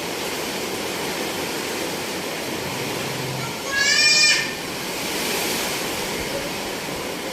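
Heavy rain and strong wind making a steady rushing noise, with one short, high-pitched cry about four seconds in.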